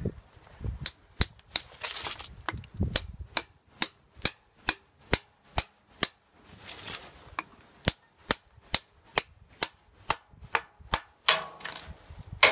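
A hammer striking a 3/8-inch steel anchor bolt, driving it into a hole drilled in granite: sharp metallic taps, each with a high ringing ping, about two to three a second, with a short pause just after the middle.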